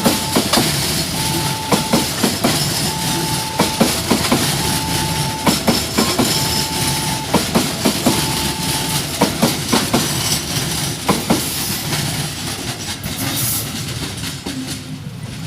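Railway wagons rolling past, their wheels clicking steadily over the rail joints. A single beeping tone repeats about every two seconds for roughly the first nine seconds. The sound dies away toward the end as the train moves off.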